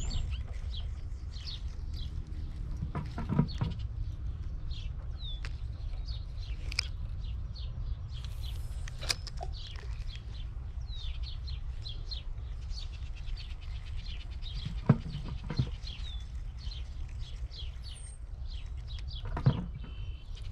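Many small birds chirping and calling in quick, scattered notes over a steady low rumble. There are a few short knocks, the sharpest about fifteen seconds in.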